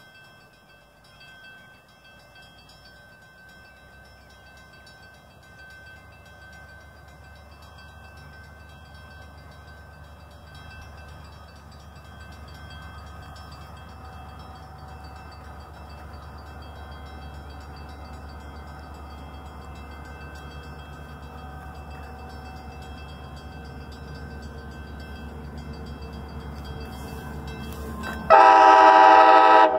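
Metra commuter train's diesel locomotive approaching slowly, a low rumble that grows steadily louder. Near the end, a loud chord blast from the train horn lasting about a second and a half.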